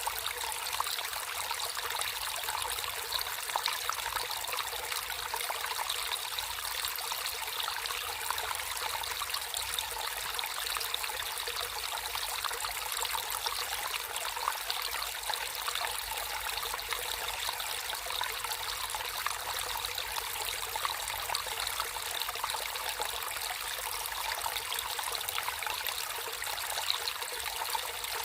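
Natural running water trickling and splashing steadily, an even rush with no breaks.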